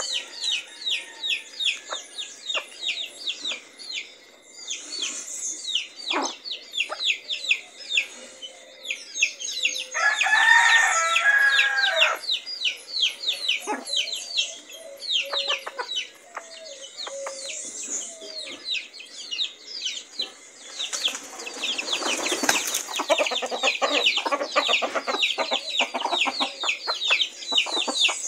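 Month-old chicks peeping in rapid, continuous high cheeps while they and the hen peck at rice on concrete, with a few sharp taps. A longer, lower crow-like call comes about ten seconds in, and there is a brief rustling burst later on.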